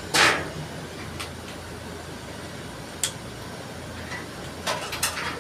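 Sharp metallic clanks and knocks from work on a centralized air-conditioning outdoor unit: a loud clank just after the start, single knocks about a second and three seconds in, and a quick run of knocks near the end, over a steady low hum.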